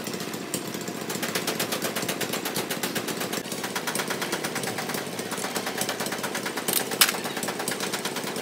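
A rapid, steady mechanical rattle of about ten knocks a second, like a pneumatic tool or engine running in the workshop, with one sharp metallic click about seven seconds in.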